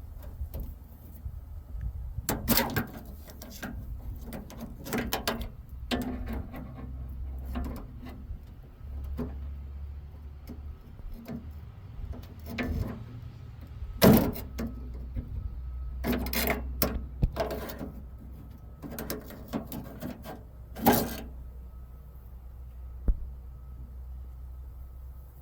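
Scattered knocks, clicks and clatters of hand work on a car door's lock and handle parts, over a steady low rumble.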